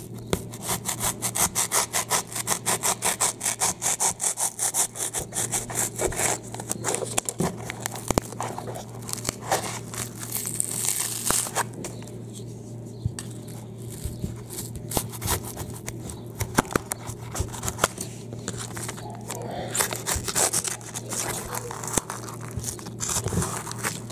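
A knife sawing through hardened expanding spray foam to cut it flush with the wall. The strokes go back and forth quickly and evenly, about four a second, for the first several seconds, then become slower and more irregular.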